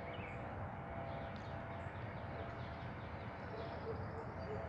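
Faint steady background noise with a low hum and a few faint, quick high chirps.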